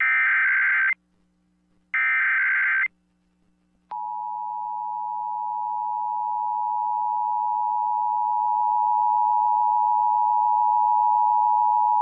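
Emergency Alert System SAME header: two one-second bursts of digital data tone, a second apart. Then, about four seconds in, the steady two-tone EAS attention signal (853 and 960 Hz) begins and holds, growing slightly louder, announcing a Required Monthly Test.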